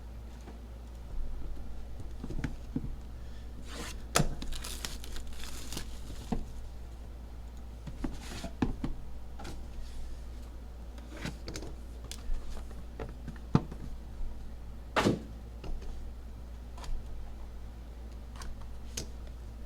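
A sealed trading-card box being opened and handled: wrapping crinkling and tearing, with scattered taps and clicks of cardboard and cards, over a steady low hum.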